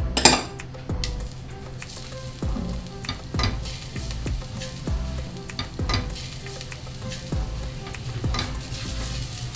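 Minced garlic sizzling in hot cooking oil in a stainless steel pot, browning, with a silicone spatula stirring and scraping the pot bottom in repeated short strokes. There is a louder burst of sound right at the start.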